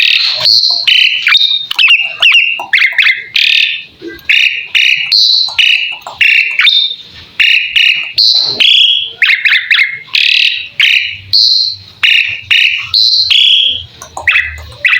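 Asian pied starling (jalak suren) singing a fast run of short, loud chattering and whistled notes, about two to three a second.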